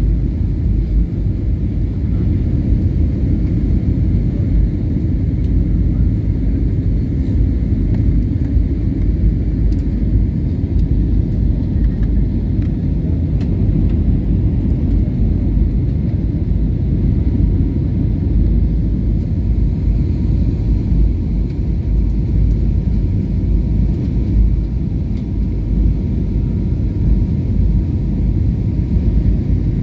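Jet airliner cabin noise during the climb after takeoff: a steady low rumble of engines and airflow heard inside the cabin, with a faint steady whine above it.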